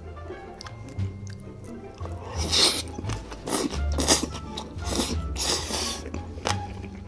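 A person slurping a big mouthful of black-bean-sauce noodles: several loud, wet slurps starting about two seconds in. Background music with a low bass line plays throughout.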